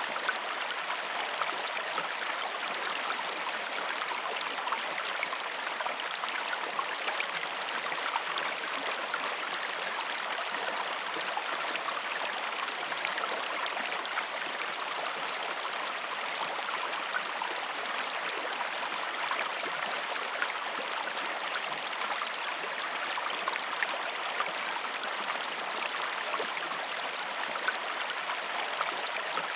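River water flowing steadily: a continuous even rush with fine scattered trickling ticks, unchanging throughout.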